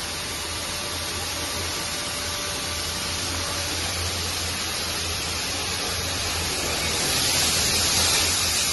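Steady hiss of water spraying in a car wash, over a low machine hum, growing louder and brighter about seven seconds in.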